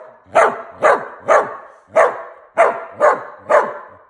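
A dog barking seven times in a steady run, about two barks a second, each one loud and dying away quickly: barking back at repeated commands to sit.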